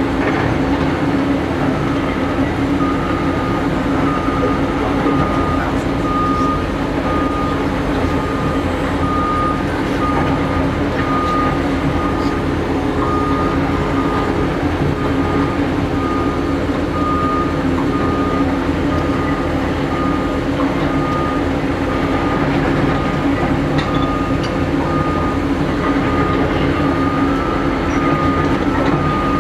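Caterpillar 330D L excavator's diesel engine running steadily as the machine works. A back-up alarm beeps at about one beep a second throughout.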